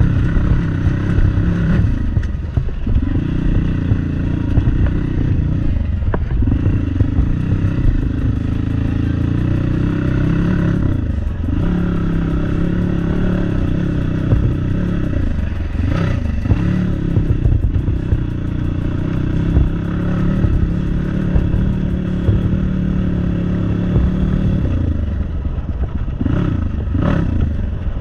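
Crossfire 250 motorcycle engine running under way on a rough track, the engine note easing off and climbing again several times with the throttle, with some clatter over the rough ground.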